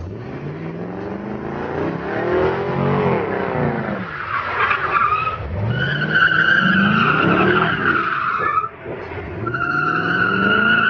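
C5 Chevrolet Corvette's V8 revving in repeated rising and falling sweeps as the car slides sideways. The tyres squeal in long high screeches from about halfway through and again near the end.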